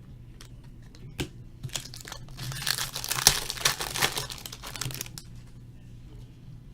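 Foil wrapper of a trading-card pack crinkling and tearing. A few sharp crackles come about a second in, then dense crinkling lasts about three seconds and fades out near the five-second mark.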